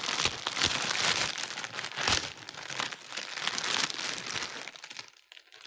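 Packaging crinkling and rustling as it is handled, a dense run of small crackles that dies away about five seconds in.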